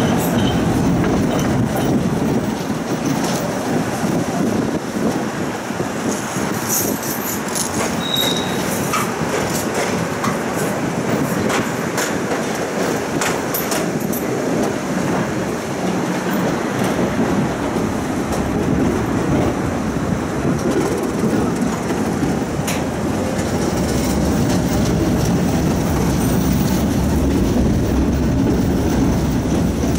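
Tram running along its rails, heard from on board: a steady rumble of wheels on track, with a run of sharp clicks and clatter in the first half.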